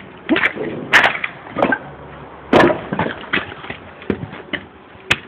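Footsteps on stone stairs: irregular sharp knocks and scuffs, a few each second, the loudest about a second in and about two and a half seconds in.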